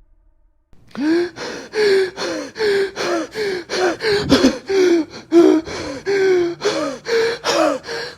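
A voice making a rapid series of short, pitched gasping sounds, about two a second, starting about a second in.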